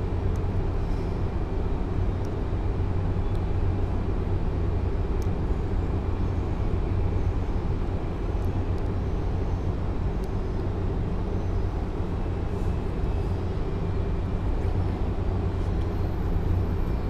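Steady low rumbling background noise with no speech, with a few faint ticks.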